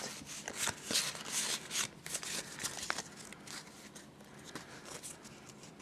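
Foil booster pack wrapper crinkling and tearing open, followed by the cards inside being handled with small clicks and rustles, fainter in the second half.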